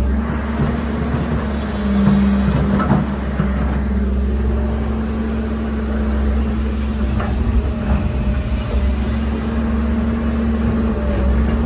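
Diesel engine of heavy construction machinery running steadily, with a few short knocks and clanks of the machine working.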